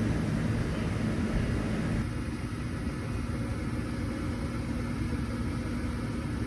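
Gas furnace's draft inducer motor running with a steady hum while the hot surface igniter glows and no flame lights, because the gas valve has failed to open despite 24 volts reaching it. The sound gets slightly quieter about two seconds in.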